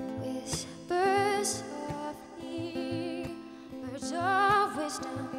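A woman singing a slow song with vibrato over her own acoustic guitar, two long sung phrases about a second in and about four seconds in.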